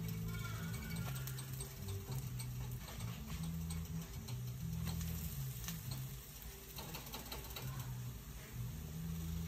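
Pancakes sizzling in a cast-iron skillet, with a spatula scraping and tapping the pan as they are flipped. Near the end the scrapes come from scrambled eggs being stirred in a second pan. Underneath runs a low bass line of background music.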